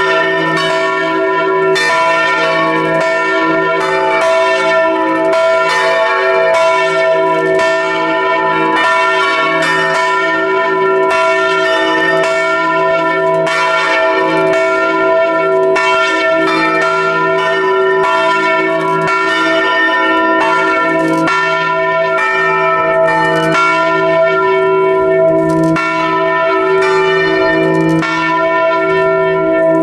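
Several large bronze church bells swinging and ringing together at close range in the belfry. The clapper strikes come thick and overlapping, over a steady hum of sustained bell tones.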